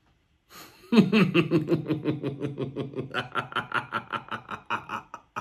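A man laughing heartily, a loud, quick run of 'ha-ha' pulses at about five a second, starting about a second in.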